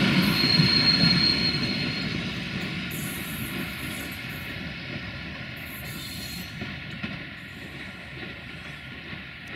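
Passenger train coaches rolling away over the tracks, their wheel and rail noise fading steadily. A high, steady wheel squeal sounds for about the first two seconds and briefly again midway.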